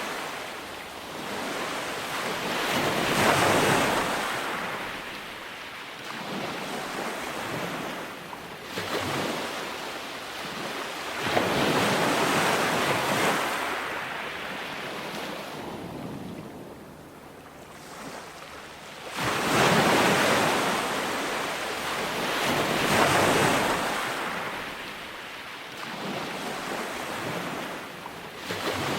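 Ocean surf on a beach: waves breaking and washing up in slow surges every few seconds, with a quieter lull about two thirds of the way through.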